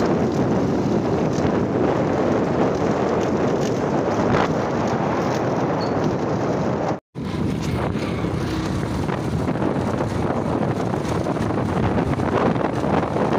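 Wind buffeting the microphone and road noise from a motorcycle moving along a rough dirt road, a steady rush that cuts out for a moment about halfway through.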